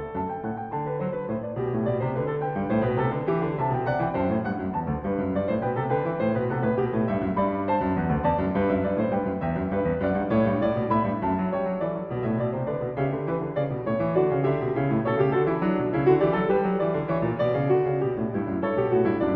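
Piano music: a steady, continuous flow of notes.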